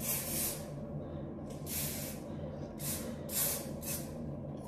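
A got2b aerosol hairspray can spraying onto the hair in four short hissing bursts.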